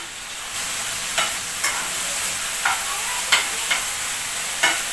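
Boiled broccoli frying in oil in a pan, a steady sizzle as its water cooks off, with a spoon clicking and scraping against the pan about six times as it is stirred.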